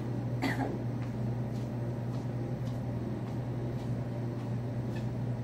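Steady low hum of refrigeration: the store's glass-door drink coolers and ice merchandiser running. A few faint short taps sound over it.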